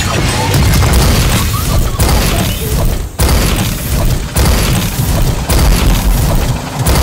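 Sound effects for a robot transformation: heavy booms and metallic crashes, several sudden hits about a second apart, with some mechanical clanking, over music.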